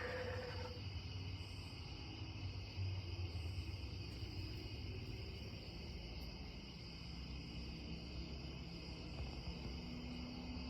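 A steady chorus of chirring crickets, with a faint low hum underneath.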